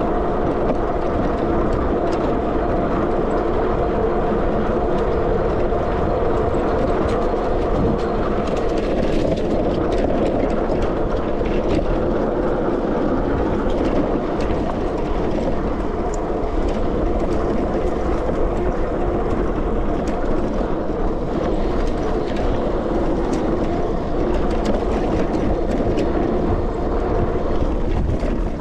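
Riding noise of a Sondors MadMods electric bike on a dirt trail: a steady hum and low rumble from the moving bike and its tyres on the dirt, with scattered small clicks and knocks from bumps.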